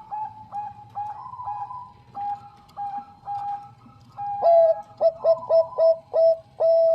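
Zebra dove (bangkok perkutut) cooing: a run of short, quick coos, about three a second. About four and a half seconds in, a louder, lower-pitched phrase of clipped coos begins and ends on one long held note.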